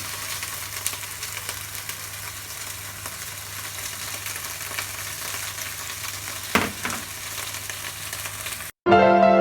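Okra rolls sizzling and crackling steadily in a frying pan, with a sharp knock about six and a half seconds in. Music begins near the end.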